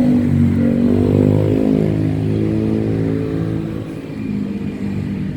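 A motor engine running close by, its pitch shifting up and down, quieter for the last second or so.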